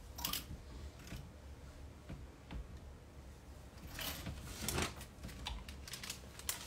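Rummaging through clothes on hangers in a closet: scattered clicks of hangers and rustling of fabric, busiest about four to five seconds in.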